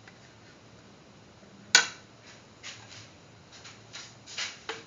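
A quiet kitchen with one sharp click about two seconds in, then a few softer taps and rustles near the end.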